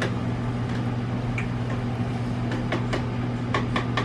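Steady low electric hum of a kitchen appliance motor, such as a stove's vent fan, with scattered light ticks and clicks.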